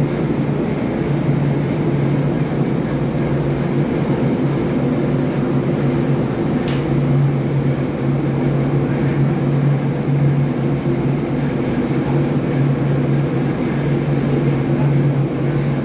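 Steady drone of a ship's engine-room machinery running, with a brief faint click about seven seconds in.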